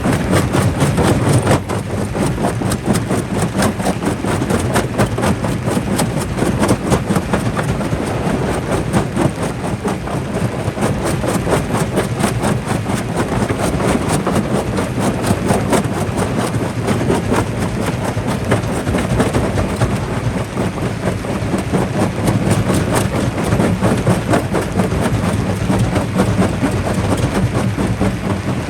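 Jaw rock crusher running and crushing stone: a steady low machine hum under a dense, irregular clatter of rocks cracking and knocking in the jaws.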